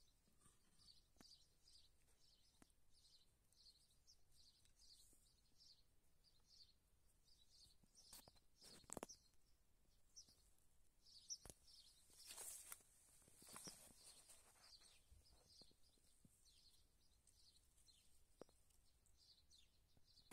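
Very faint outdoor ambience: a high chirp repeating about twice a second, with a few soft rustles and clicks around the middle.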